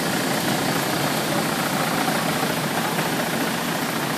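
CEI ECL slitter rewinder running at speed, slitting and rewinding a web of booklet labels: a steady whirring hiss from its rollers and shafts that holds even throughout.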